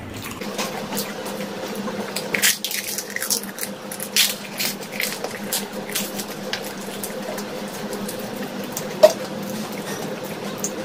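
Two people eating doi fuchka, yogurt-filled puri shells: wet, squishy chewing with crisp crunches and short clicks of the shells breaking, over a steady low hum. A sharp click stands out about nine seconds in.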